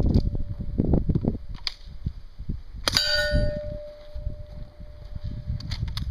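Steel targets being hit by Mini Uzi submachine-gun rounds: a sharp clang about three seconds in, after which the plate rings on at one steady pitch for nearly three seconds. Low thumps come in the first second or so.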